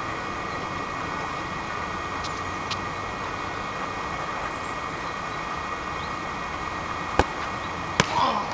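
A football is kicked with a sharp thump about seven seconds in, and a second thump follows under a second later as the ball reaches the goalkeeper and rebounds. Both sound over a steady background hum.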